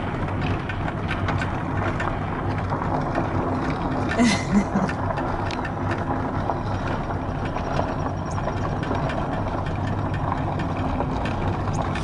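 Car driving slowly along a dirt road, heard from inside the cabin: a steady low engine hum and tyre noise, with scattered clicks and rattles throughout.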